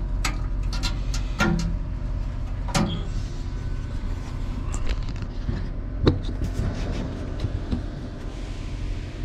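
Scattered metal clinks and knocks from hands handling a condenser's water pump and its mesh screen, over a steady low machinery hum. The sharpest knock comes about six seconds in.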